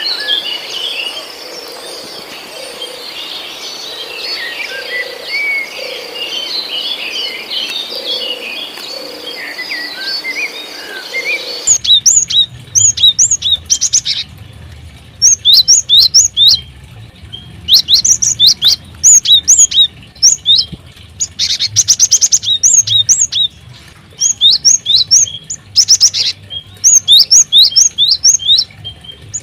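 Small caged birds in an aviary chirping: a busy chatter of many birds at once, then, after an abrupt change about twelve seconds in, loud sharp chirps in quick runs close by over a low hum.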